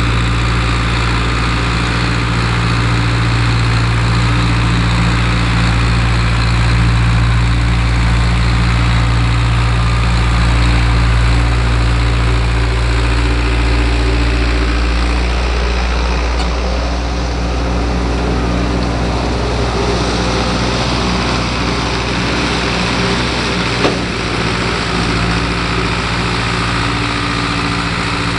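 Long 900 tractor's diesel engine running steadily, pulling a disk harrow through the field. The engine note shifts about halfway through, and there is a single brief click near the end.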